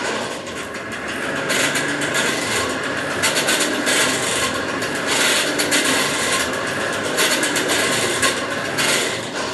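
Hand-cranked Champion forge blower running steadily, a rasping whir that swells and eases as the crank is turned, blowing air into the coal fire to bring the iron stock up to heat.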